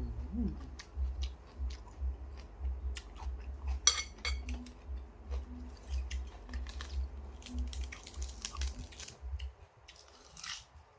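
A person chewing a mouthful of noodles close to the microphone: a steady run of low thuds, two or three a second, easing off near the end. A single sharp click about four seconds in.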